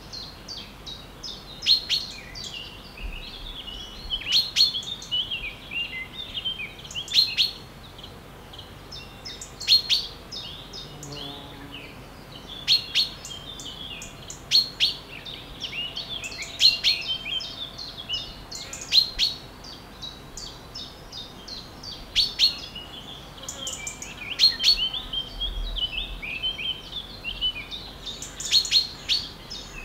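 Several birds chirping and singing at once: many short, sharp notes and twittering phrases overlap throughout, over a faint steady background hiss.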